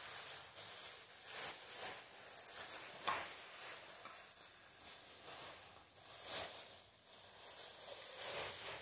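Thin plastic shopping bag rustling and crinkling as it is handled, in irregular bursts with a few sharper crackles.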